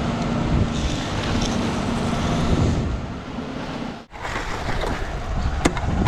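Ready-mix concrete truck running with a steady engine hum while wet concrete rushes down its chute, a continuous washing noise. It breaks off briefly about four seconds in, then resumes, with a sharp click near the end.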